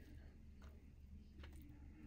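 Near silence with two faint clicks, a metal spoon digging into the soft potato-and-meat filling of a baked bread pot.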